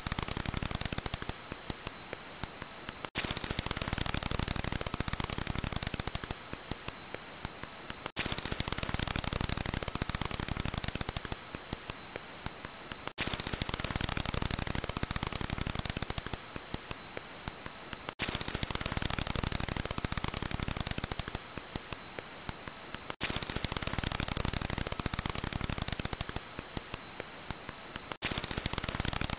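Long-eared bat echolocation calls rendered audible: a dense, rapid stream of clicks for a few seconds that thins out to a few separate ticks, with a faint steady whine under the dense part. The same five-second recording repeats, about six times over.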